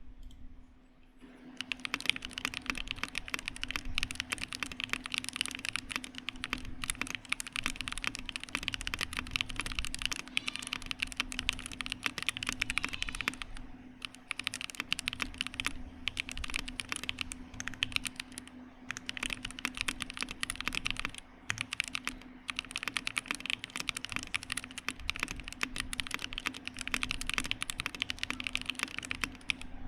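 Typing on a Revo-Happy 60 HHKB-layout mechanical keyboard with stock Haimu Cockatiel switches, Gateron blank keycaps, a carbon-fibre plate, Poron gasket mount and no foam. A dense stream of keystrokes starts about a second and a half in, with a few short pauses, over a low steady hum.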